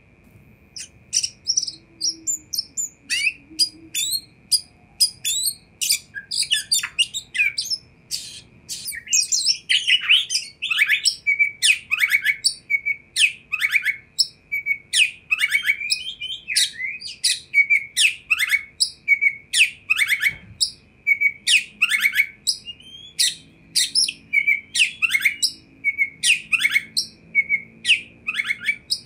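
Oriental magpie-robin singing a fast, varied song of sharp chirps and short whistled notes, many of them sliding down in pitch. A steady high whistling tone runs underneath.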